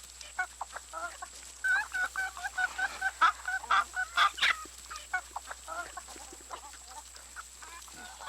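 Chickens clucking, with a quick run of clucks from about two to four and a half seconds in, then scattered clucks.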